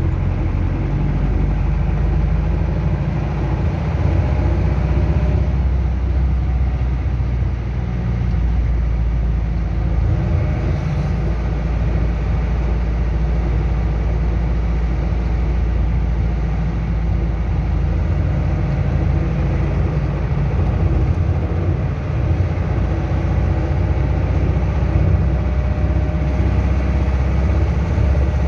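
Chevrolet D-10 pickup's turbo diesel engine running steadily, with the strange noise that the owner is concerned about.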